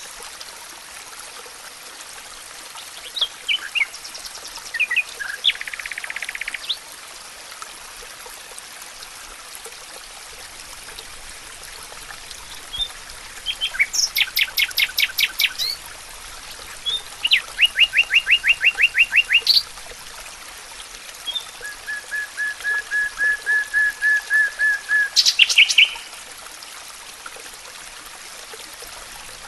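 Wild birds singing in a forest over a steady faint hiss. There are several separate trilled songs: a fast trill about 14 seconds in, a run of quick rising notes soon after, and a series of evenly spaced notes at a steady pitch building up for about four seconds before ending in a few high notes.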